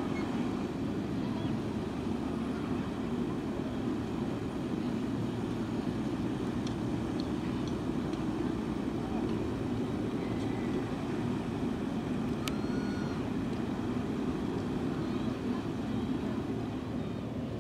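Steady low rumble of ship and tug engines across the water, with a short high chirp about twelve and a half seconds in.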